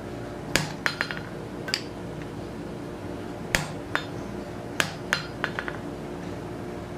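Hand hammer blows on a red-hot 25 mm steel bar laid over a hot-cut hardy in the anvil, cutting the bar off as it is turned around the cutter. About eight sharp metallic strikes come at irregular spacing, several in quick pairs, some with a brief ring after them, over a steady hum.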